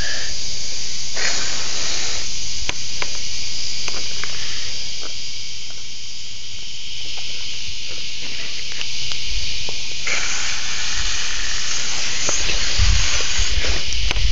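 Steady hiss of water running out of a garden hose, growing louder near the end, with a few faint clicks.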